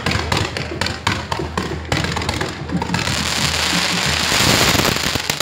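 Fireworks tower (castillo) going off: rapid crackling bangs of firecrackers, then from about three seconds in a dense rushing hiss of spark fountains that swells louder.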